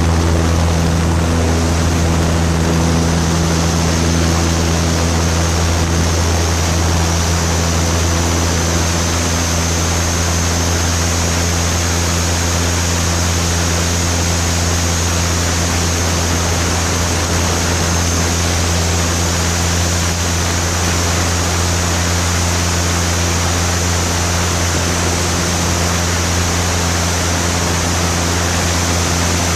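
Piper Super Cub's piston engine and propeller running at steady power in flight, a constant low drone with a hiss of rushing air over it.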